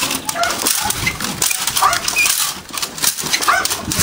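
A Belgian Malinois biting a decoy in a bite suit: short high-pitched yips and whines from the dog, mixed with sharp cracking clacks of the decoy's split bamboo stick and scuffling against the suit.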